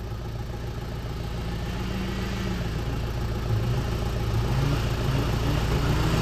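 An off-road vehicle's engine running and growing steadily louder as the vehicle drives closer, over a steady low engine hum.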